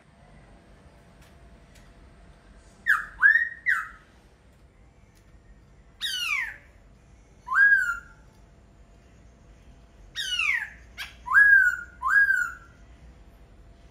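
Laughingthrush (khướu) singing: loud, clear whistled notes delivered singly or in quick groups of two or three, some sliding steeply down in pitch, with pauses of one to two seconds between phrases.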